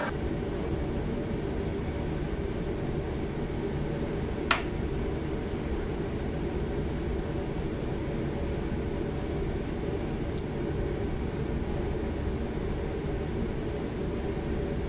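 Steady low hum of commercial kitchen machinery, with one sharp click about four and a half seconds in.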